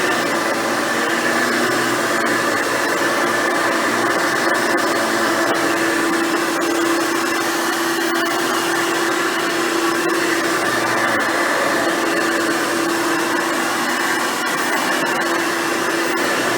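Hoover Futura Dimension upright vacuum cleaner running steadily while vacuuming.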